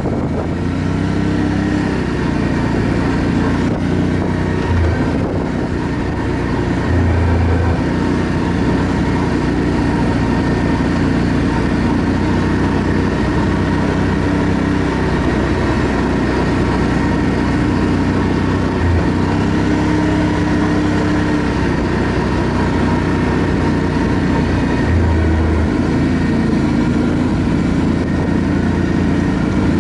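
ATV engine running steadily while riding, its pitch stepping up and down now and then.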